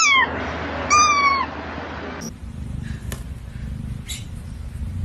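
A cat meowing twice: two short, high meows about a second apart, each dropping in pitch at the end. After that there is a low steady hum with a few faint clicks.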